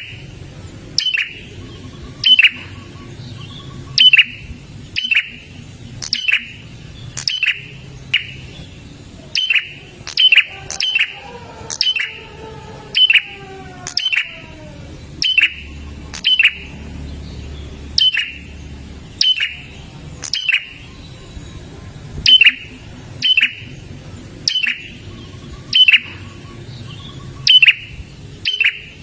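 A prinia (prenjak) calling loudly and over and over: a sharp, short note that drops quickly in pitch, repeated about once a second with a short break near the middle.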